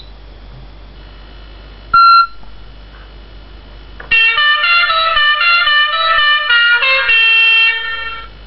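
RC vehicle horn sound effects: a short single horn beep about two seconds in, then from about four seconds a musical horn playing a tune of changing notes for about four seconds.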